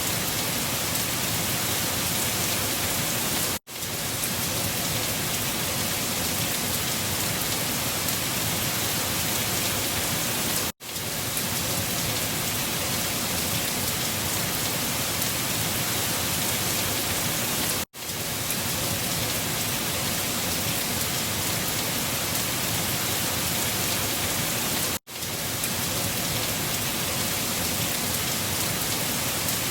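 Steady storm noise, an even rushing hiss with no distinct gusts or drops, cutting out for an instant four times at regular intervals about seven seconds apart, as a short recording loops.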